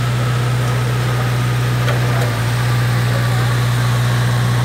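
An engine running steadily close by, a deep even hum with a faint high whine over it.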